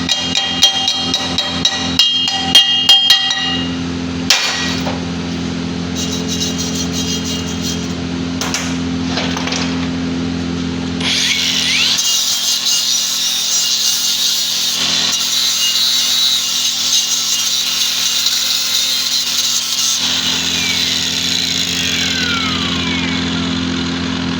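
Metal knocks at the start, then a power tool working on a steel pipe, running with a steady hiss and whine for about ten seconds before winding down in pitch near the end.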